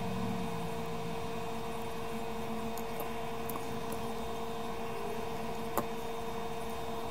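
Steady hum and hiss of running workbench equipment, holding one constant tone, with a single small click about six seconds in.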